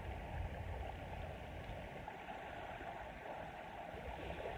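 Steady wash of small waves breaking on a sandy shore, with an irregular low rumble underneath.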